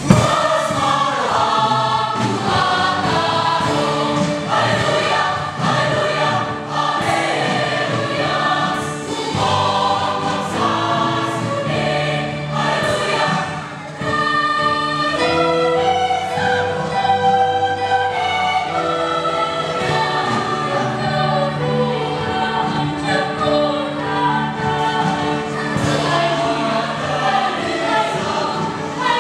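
A mixed youth choir of women and men singing a Christmas church song together, with a short dip in the singing about halfway through.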